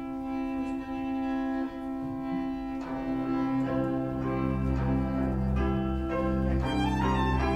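Violin, bowed double bass and accordion playing Romanian folk music. It opens on long held notes, and low bass notes fill in more strongly about three seconds in.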